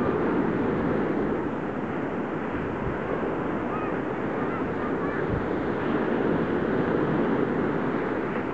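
Sea waves breaking and washing up a sandy beach in a steady rush of surf, with wind buffeting the microphone.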